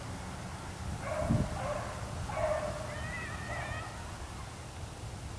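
Beagle baying out of sight in the brush, several drawn-out bays in a row: the voice of a hound running a rabbit's trail. A single low thump about a second in.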